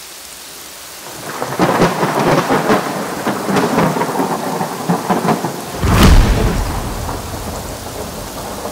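Rain falling, heavier from about a second and a half in, with a loud thunderclap about six seconds in that rumbles as it fades.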